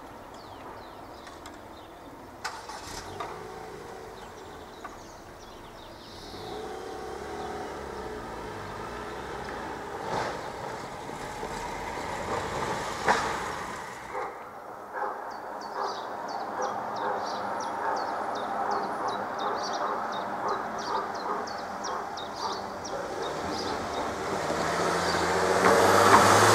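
Road traffic at a railway level crossing, with cars running past. In the second half a crossing warning bell rings rapidly and evenly while the barriers come down. Near the end a car passes close by, loudest of all.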